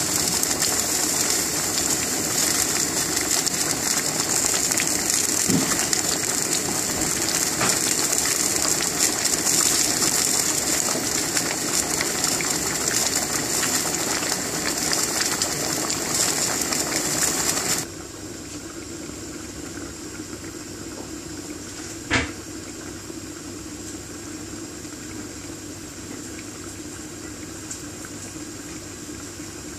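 A pot of red lentils boiling hard, a steady loud bubbling and hiss. About two-thirds of the way through it drops suddenly to a quieter, steady bubbling with the pot lidded, and a single short knock follows a few seconds later.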